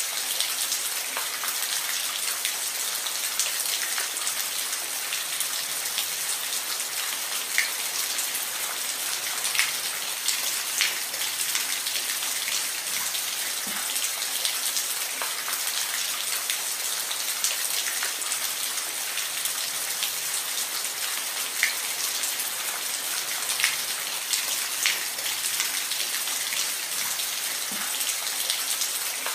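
Steady rain falling, an even hiss with individual drops ticking close by now and then.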